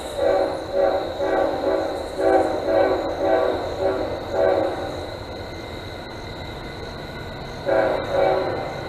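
Norfolk Southern locomotive's multi-chime air horn playing a rhythmic salute: a rapid run of short chord blasts, a pause over the train's low rumble, then two more short blasts near the end.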